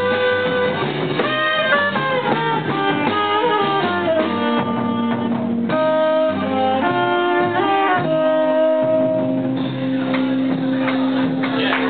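Live small jazz band: a saxophone plays long held and sliding notes over upright bass and electric guitar. About nine and a half seconds in, the saxophone drops out and the guitar and bass carry on.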